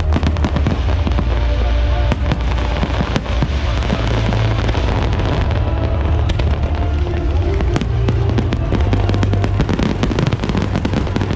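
Aerial fireworks display going off continuously: deep booms with dense crackling bursts, the crackle thickening in the last few seconds.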